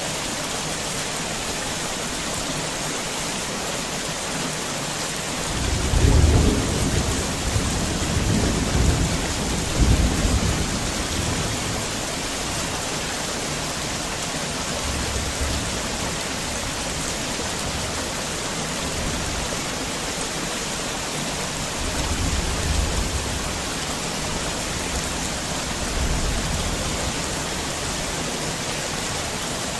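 Heavy rain falling steadily as a constant hiss. Thunder rolls in about five seconds in and rumbles for several seconds, with fainter rumbles later.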